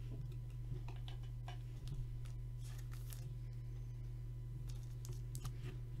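Soft, irregular clicks and crinkles of a trading card being handled and slipped into a thin plastic penny sleeve, over a steady low hum.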